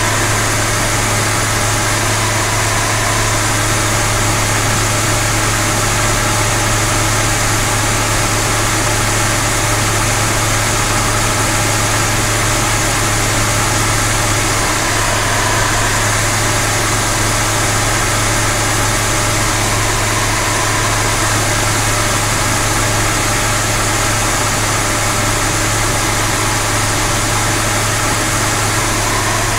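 Light aircraft's engine and propeller droning steadily, heard inside the cockpit, with a strong low hum and no change in power.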